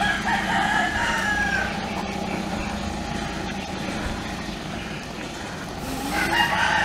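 A rooster crowing, one drawn-out call of about a second and a half near the start, with more calls near the end, over a steady low hum.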